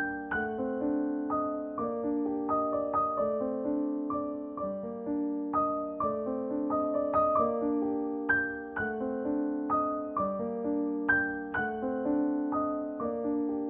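Background piano music: a melody of struck notes and chords, each ringing and fading.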